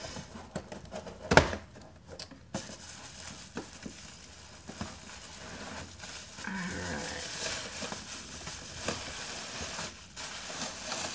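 Packing tape being pulled and torn off a parcel by hand, with the wrapping crinkling and rustling. A single sharp knock comes about a second and a half in.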